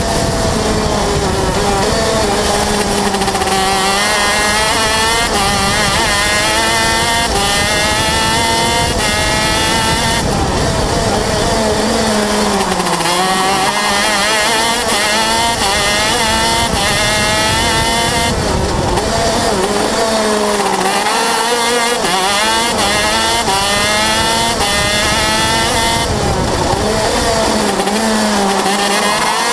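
A 125cc KZ shifter kart's two-stroke engine at full racing pace, heard close up from the kart itself. It revs up repeatedly through the gears, and the pitch drops steeply about 13 and 21 seconds in as it slows for corners.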